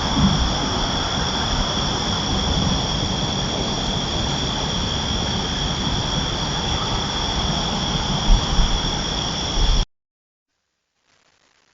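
Passing train: a steady rumble with high, unchanging wheel squeal, which cuts off suddenly near the end.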